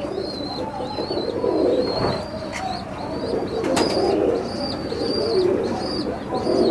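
Domestic pigeons cooing together in a low, continuous murmur, with a thin high chirp repeating about two or three times a second over it.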